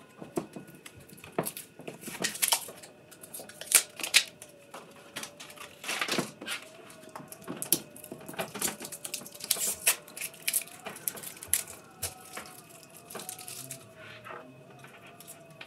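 Tape and wrapping being peeled and torn off a lithium-ion battery pack by hand: irregular crinkling, tearing and clicking.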